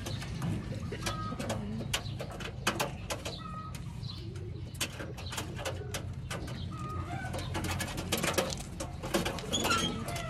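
Domestic pigeons cooing in a loft, a low steady sound under scattered sharp clicks and taps.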